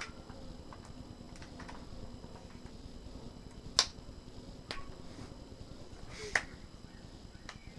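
A handful of separate sharp clicks and knocks from a Yunteng VCT-288 monopod being handled and adjusted, the loudest a little under four seconds in and another just past six seconds.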